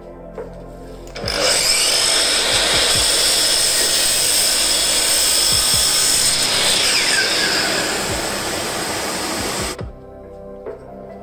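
Makita LS1219L 12-inch (305 mm) 1800 W sliding compound miter saw running and cutting wood: a loud, dense whine that starts abruptly about a second in and cuts off suddenly near the end, with a falling tone partway through.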